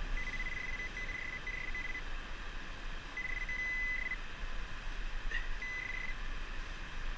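A metal-detecting pinpointer probe sounding a steady high electronic tone in broken stretches as it is swept over a target in the sand. The tone sounds several times in the first two seconds, then about a second later for about a second, and once more briefly near the end; each stretch marks metal close to the probe's tip.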